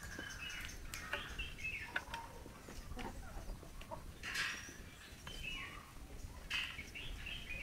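Chickens clucking while feeding: a string of short clucks and chirps, with two louder, harsher calls around the middle and later on, and light clicks of beaks pecking at the tray.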